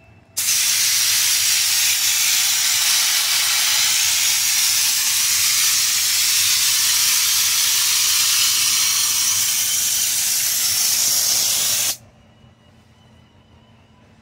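Air-powered spray gun spraying Raptor bed liner: a loud, steady hiss of compressed air and coating that starts about half a second in, runs for about eleven seconds and cuts off sharply.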